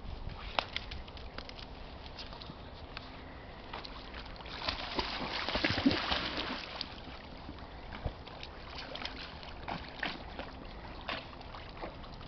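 A Siberian husky and another dog splashing through the water as they wade and swim. The splashing is heaviest from about four and a half to seven seconds in, then it settles to quieter paddling with occasional small splashes.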